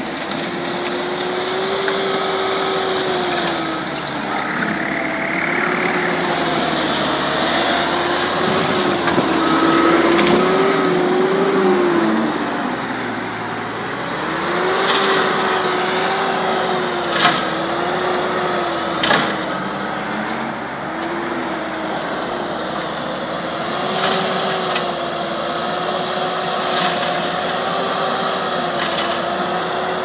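ASV Posi-Track SR-70 track loader running a rotary brush cutter, a loud continuous machine drone whose pitch wavers up and down and sags briefly about halfway through. The blade shreds dry brush and rotten wood with a constant crackling hash, and three sharp cracks stand out a little past the middle.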